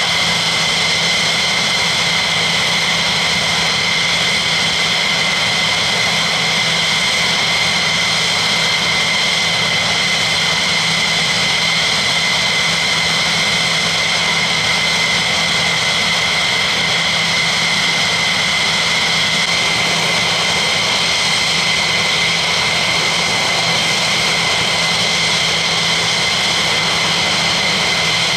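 Twin Pratt & Whitney F100 turbofans of an F-15E Strike Eagle running at ground idle: a loud, steady jet whine with high unchanging tones over a constant rush.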